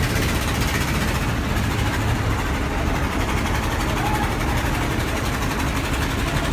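Boat engines running with a steady low rumble.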